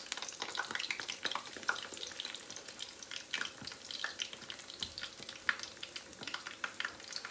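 Spice-coated tilapia pieces frying in hot vegetable oil, with parsley leaves in the oil: a sizzle made of many small, irregular crackles and pops.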